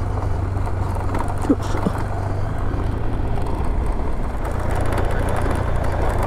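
Adventure motorcycle engine running steadily under way on a gravel track, with the rush of wind and tyres on the loose surface.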